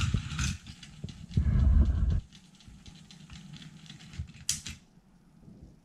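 Toy Amtrak train running on its plastic track, its motor and wheels rattling while a hand grabs it. The running stops suddenly about two seconds in. Small clicks follow as the cars are handled, then a short rustle.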